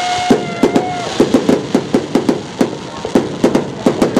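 Fireworks going off in quick succession: sharp crackling bangs, several a second. A held high tone sounds over them for about the first second.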